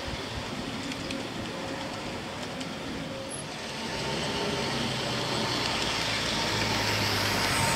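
G-scale model steam locomotive and passenger car running on the rails: a steady rumble of wheels on track with a low motor hum. It grows louder from about halfway through as the engine approaches.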